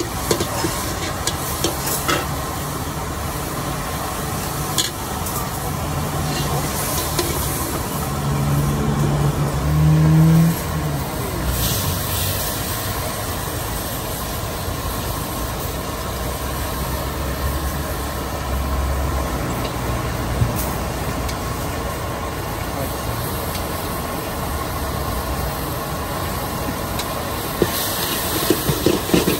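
Steady sizzle of food frying at a street food stall, with scattered clicks of utensils. A low hum swells and fades about ten seconds in.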